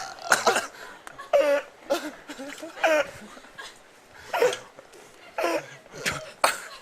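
A man burping repeatedly after gulping cola, in several short bursts, mixed with laughter.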